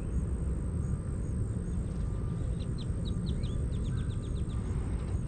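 A small bird sings a quick run of about a dozen short, high chirps, roughly six a second, starting about two and a half seconds in, over a steady low rumble.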